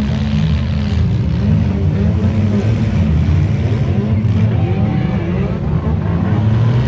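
Engines of several demolition derby cars running and revving in the arena, a loud, steady rumble, with crowd voices above it.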